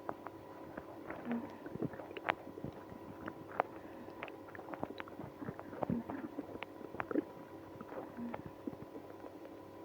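Stomach and bowel gurgling: many short, irregular pops and squelches with a few brief low gurgles. This is the noisy digestion of someone with IBS after drinking milk and prune juice.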